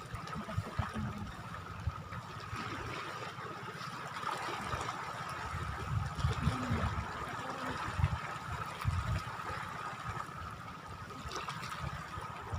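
Shoreline water trickling and lapping, with irregular low thumps and a faint steady high tone in the background.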